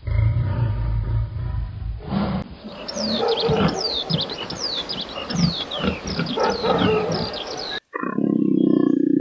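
Animal sounds cut one after another: first a low, rumbling roar-like call, then about two seconds in, a run of quick, high chirps that fall in pitch, like bird calls. Near the end it cuts to a steady, low, droning call.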